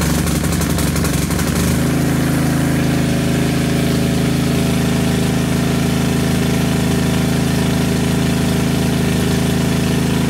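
A riding mower's 13.5 hp Briggs and Stratton engine running steadily, a little uneven for the first couple of seconds before settling. Its fuel cap vent has just been cleared of debris, the repair for the vapor lock that was starving it of fuel.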